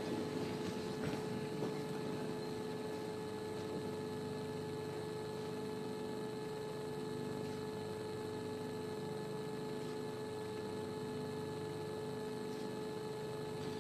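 Room tone of a silent hall: a steady electrical hum with faint hiss, with a little faint rustling in the first couple of seconds.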